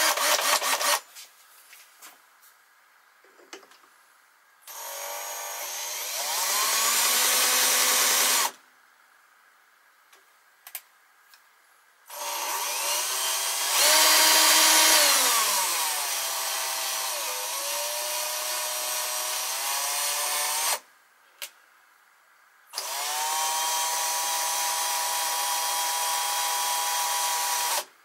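Cheap cordless drill driving a lathe cross-slide screw through a slip-on coupling as a power feed. It runs in three bursts of several seconds: the first speeds up, the second rises and then falls in pitch, and the third holds a steady speed. A short rapid clatter of clicks comes right at the start.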